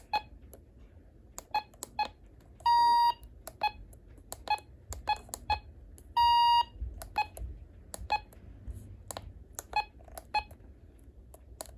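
RadioShack 12-262 weather alert radio beeping as its buttons are pressed to step through the alert menu: a string of short key beeps, with two longer, louder beeps about three seconds and six and a half seconds in.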